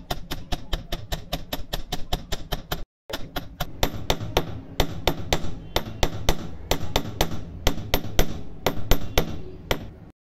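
Hand hammer striking gold-plated brass chain links on a steel bench block in quick, even blows, about five a second, flattening the links into a Cuban curb shape. The blows pause briefly about three seconds in, then carry on and stop near the end.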